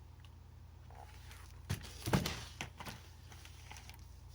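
Paper book pages being turned and handled: a few short rustles and soft knocks in the middle stretch, over a faint low hum.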